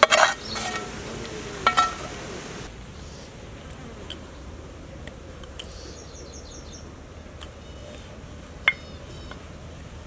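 Outdoor background with a steady low hum. A few sharp clinks come in the first two seconds, and later short, high chirps come in quick runs of about five.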